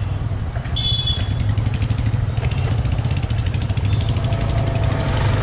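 Motorcycle engine idling steadily at a standstill, with a brief high-pitched tone about a second in.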